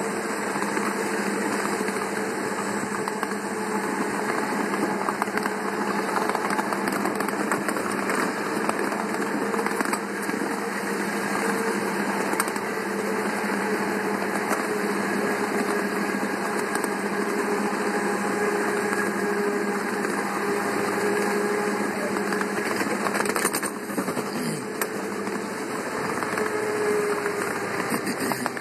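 Ride-on miniature train locomotive running steadily along the track: a constant mechanical drone with a slightly wavering hum, over the rumble and clatter of small wheels rolling on the rails.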